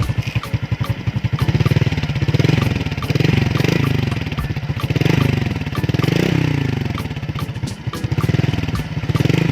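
Suzuki Raider J 115 Fi's single-cylinder fuel-injected four-stroke engine revved again and again through its stock, unmodified exhaust, about once a second. The pitch climbs and falls with each blip over a steady low engine note.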